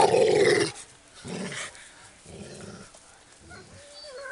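Labrador dogs growling in play: a loud growl at the start, then three quieter growls about a second apart, and a short puppy whine near the end.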